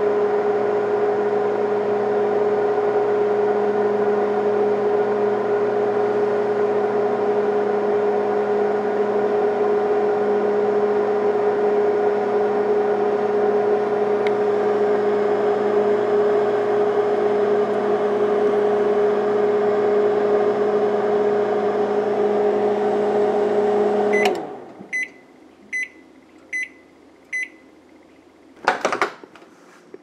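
Microwave oven running with a steady hum, heard from inside the cooking cavity; about 24 seconds in it shuts off with a click and beeps several times at the end of the cycle, then a loud clunk near the end as the door is opened.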